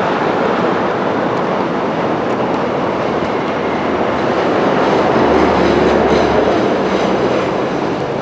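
Loud, steady city traffic noise: large road vehicles, including a bus, passing close by in a continuous rumble and rush.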